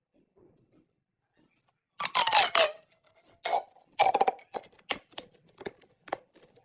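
Mini plastic pop tubes being stretched and squashed, giving bursts of crunchy crackling about two and four seconds in, then a few single sharp clicks.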